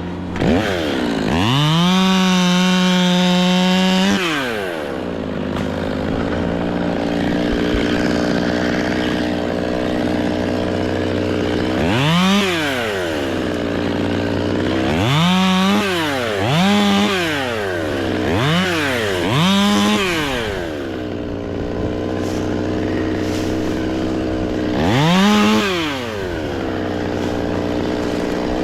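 Two-stroke chainsaw held at full throttle for about two seconds near the start, then idling between about six quick throttle blips. Another engine runs steadily underneath.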